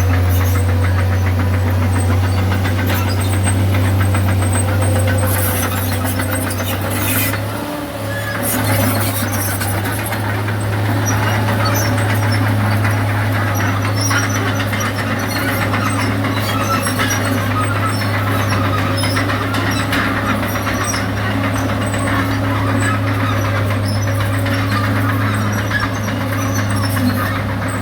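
Crawler bulldozer working: the diesel engine runs steadily while the steel tracks squeal and clank. The engine level briefly dips about eight seconds in.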